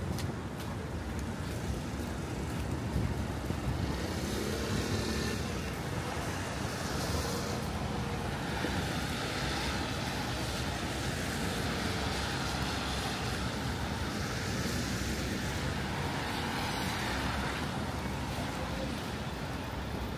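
City street traffic: cars passing steadily, with swells of tyre noise as vehicles go by.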